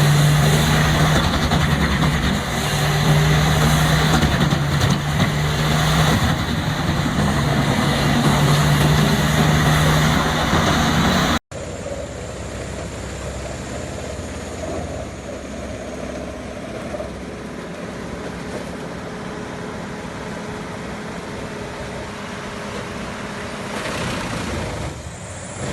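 Large industrial wood chipper running under load, a steady low engine hum under the dense noise of wood being shredded. About eleven seconds in the sound cuts abruptly to a quieter, steady running of machinery.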